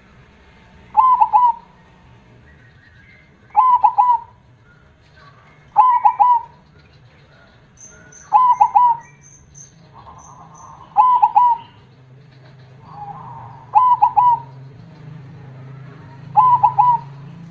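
Zebra dove (perkutut) singing its cooing song, a short phrase of a few quick notes repeated about every two and a half seconds, seven times; the song has the big voice with a 'kong' ending that perkutut keepers prize.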